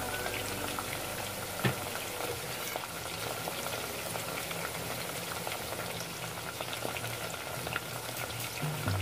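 Tofu cubes deep-frying in hot oil, a steady sizzle with fine crackling and one sharper pop about two seconds in.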